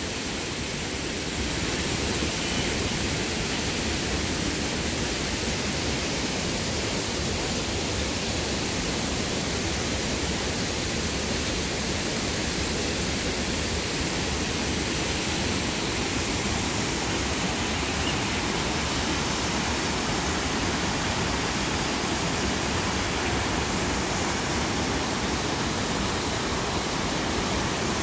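Steady rush of falling water from a waterfall, a little louder from about a second and a half in.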